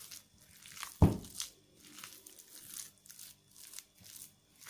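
Silicone spatula stirring a thick paste of minced salted pork fat, garlic and dill in a glass bowl: repeated wet, scraping strokes, with one louder thump about a second in.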